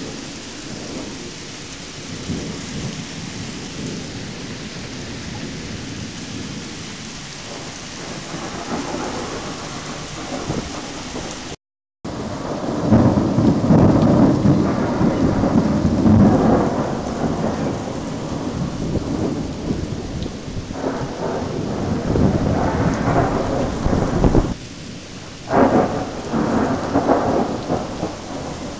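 Steady rain falling in a thunderstorm. After a brief break in the sound about twelve seconds in, louder thunder rumbles in uneven waves over the rain.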